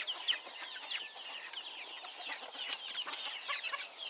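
Backyard chickens calling: many short, high, falling peeps and chirps overlapping steadily.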